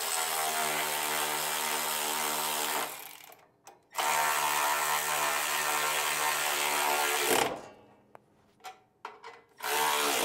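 Small cordless electric ratchet driver running nuts down onto carriage bolts: two steady runs of about three seconds each with a short pause between, then a brief burst near the end.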